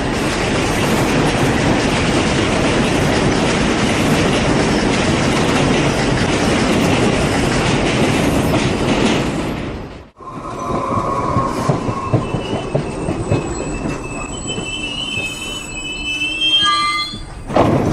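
New York City subway train passing through the station at speed, a loud steady rush of wheels on rail that cuts off after about ten seconds. Then another subway train is heard with squealing wheels on the rails, and a high whine that falls in steps near the end.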